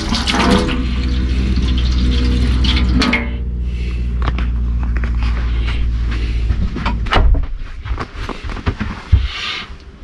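Hot water running from a motorhome kitchen mixer tap into a stainless steel sink, over a steady low hum. The water stops about three seconds in, the hum about four seconds later, followed by scattered knocks and clicks of handling.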